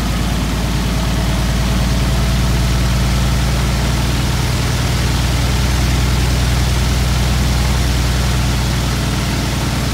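UL Power UL520iS six-cylinder, air-cooled, fuel-injected engine running steadily at about 1,100 to 1,200 rpm just after starting. It is still cold and warming up.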